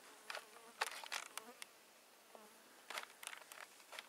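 Footsteps crunching on dry gravelly ground and twigs, in irregular clusters, with an insect buzzing close by for under a second shortly after the start.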